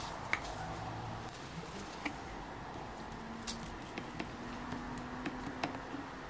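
Light glass clicks and taps as a small glass jar of tannin powder is tipped against the rim of a glass bottle and the powder is shaken into the water, over a steady background hiss.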